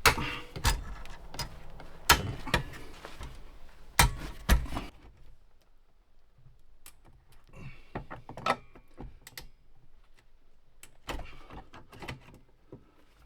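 Hammer and pry bar knocking and prying at tar-like seam compound in a wooden boat's bilge: about seven sharp blows in the first five seconds, then scattered quieter clicks and scrapes.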